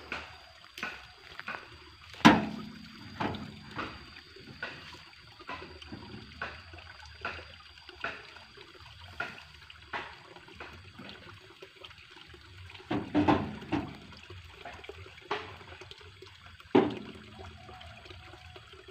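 Water trickling in a small irrigation ditch, with light clicks about once a second and a few sharper wooden knocks, the loudest about two seconds in, as wooden plank ramps are handled and set against a pickup truck's tailgate.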